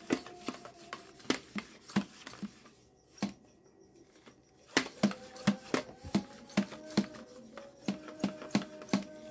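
Hard plastic toy gun being handled, its parts clicking and knocking in short, irregular sharp clicks, with a quieter pause about three seconds in before the clicking picks up again.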